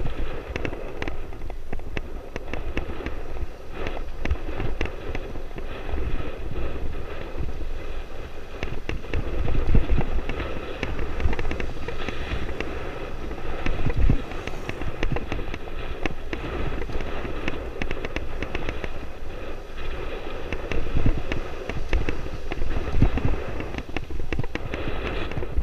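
Wind buffeting the camera's microphone and rough road noise while riding along a street, full of rapid crackling and knocking.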